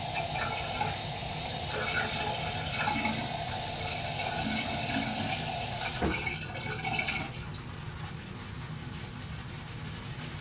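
Bathroom water tap running into the sink as a shaving brush is wetted for lathering; the flow stops about six to seven seconds in.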